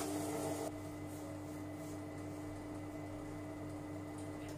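Silvercrest Monsieur Cuisine Connect food processor starting up and running at low speed (speed 2), stirring milk and sugar in its steel bowl: a brief louder rush for the first moment, then a steady motor hum with a low whine.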